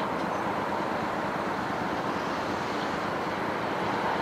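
Jet engines of a Boeing 777-200ER running on the runway: a steady rushing noise with a whine at a middle pitch, getting a little louder near the end.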